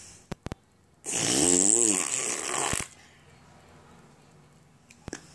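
A boy making one of his weird noises with his mouth and throat: after two quick clicks, a harsh, breathy vocal noise lasting nearly two seconds, its pitch rising and then falling.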